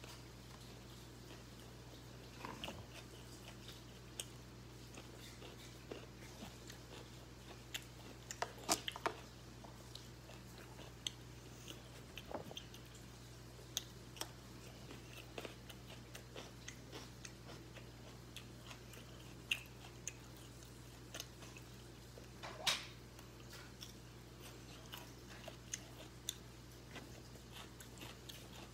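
A person eating: faint chewing and biting with scattered small clicks and crunches, over a steady low hum.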